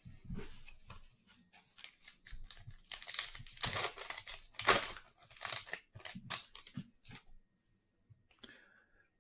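A foil trading-card pack wrapper being torn open and crinkled by hand, in a dense run of crackles loudest in the middle.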